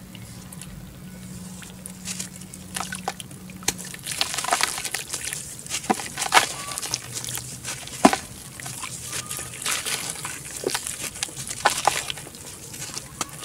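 Wet red dirt block squeezed and crumbled by hand in a basin of muddy water: water sloshing and dripping, with irregular sharp wet splats and crackles as pieces break off. The loudest splats come a little after six and eight seconds in.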